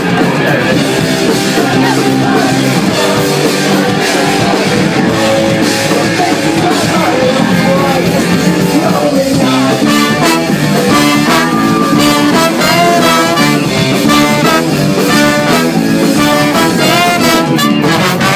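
Live ska-punk band playing loud through a stage PA, with electric guitar and drums. Trumpet and trombone lines join in during the second half.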